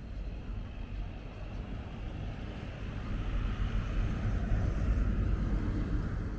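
A car passing along the street, its tyre and engine noise swelling to a peak about four to five seconds in, over a steady low rumble.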